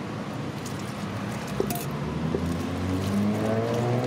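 A motor vehicle's engine nearby, rising steadily in pitch from about halfway through as it speeds up, over the soft squelching of a hand mixing gram flour batter in a steel bowl, with a few light clicks.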